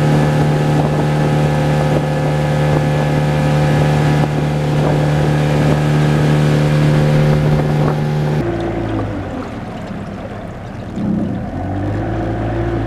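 Outboard motor pushing a small boat at steady speed, with wind on the microphone. About eight seconds in, the engine note drops lower and quieter, then rises again a few seconds later and holds steady.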